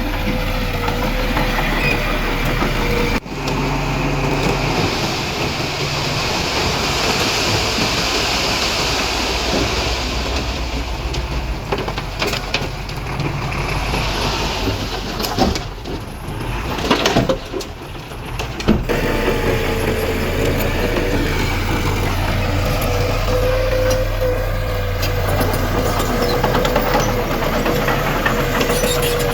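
Heavy diesel earthmoving machinery running under load, a bulldozer and dump truck at work, with a steady low engine drone. The sound changes abruptly about three seconds in and again near nineteen seconds, as if cut between shots.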